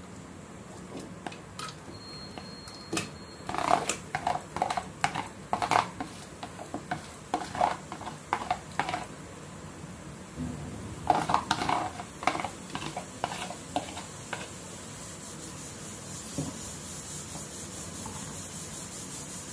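A steel spoon scraping and knocking as marinated chicken is scooped from a plastic bowl into an aluminium pressure cooker, in two bouts of quick scrapes, the first starting a few seconds in and the second just after the middle.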